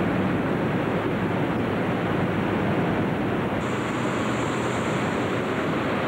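Steady, unbroken noise of many balloon inflator fans running together as hot air balloon envelopes are cold-inflated inside a vast hangar.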